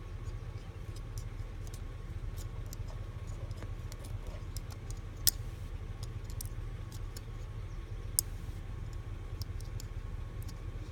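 Opened turn-signal flasher relay clicking irregularly as its contact sticks and releases, over a steady low hum. Two sharper clicks stand out, about five and eight seconds in.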